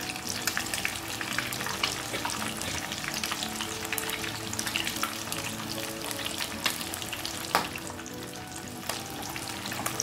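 Masala-marinated whole fish shallow-frying in hot oil over a high flame, sizzling with a dense crackle of small pops and one louder pop about three-quarters of the way through. The heat has been raised to make the fish crunchy at the end of frying.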